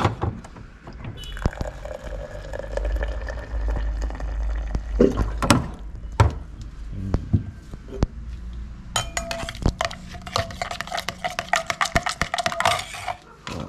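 Dishes and a metal spoon clinking, with liquid being poured. About nine seconds in comes a fast run of rapid clinks that lasts some three seconds.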